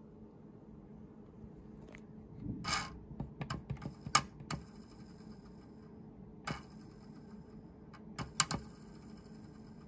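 Light plastic clicks and taps from a Lego toy plane being handled, a finger knocking at its propeller and parts: a cluster of irregular clicks in the first half, one about two-thirds of the way in, and two sharp ones near the end, over a faint steady hum.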